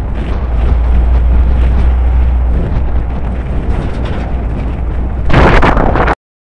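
Heavy wind buffeting on a microphone mounted outside a moving pickup truck, over a steady low road and engine rumble as it drives a dirt road. A louder gust-like blast comes about five seconds in, and then the sound cuts off abruptly.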